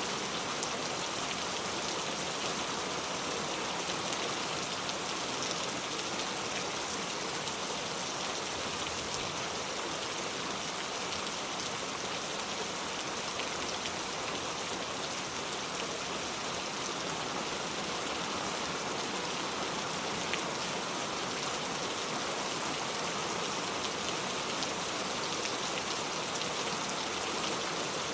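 Steady rain falling, a dense even hiss of drops pattering on surfaces, with faint scattered individual drop ticks.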